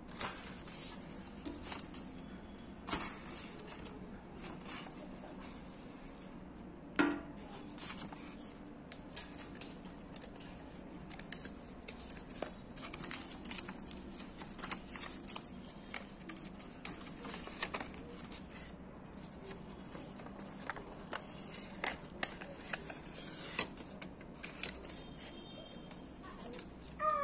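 Paper rustling and crinkling as folded paper notes and small cut paper squares are handled in a paper-lined box, with scattered light clicks and taps and one sharper knock about seven seconds in.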